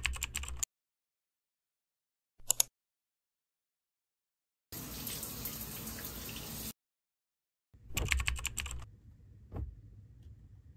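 Rapid keyboard typing clicks just after the start and again about eight seconds in, with a brief burst of clicks between. In the middle, a shower sprays water steadily for about two seconds.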